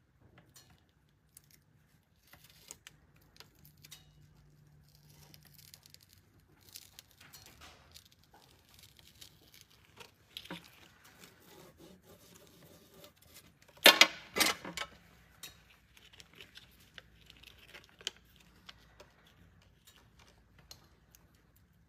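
Soft, scattered crinkling, scraping and ticking of metal tweezers and gloved fingers working a paper banknote over crumpled aluminium foil, with two sharp crackles close together about 14 seconds in.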